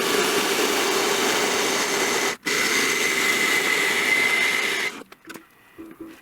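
A power tool running steadily with a high whine, broken off for an instant about two seconds in, then stopping near five seconds, followed by a few faint knocks.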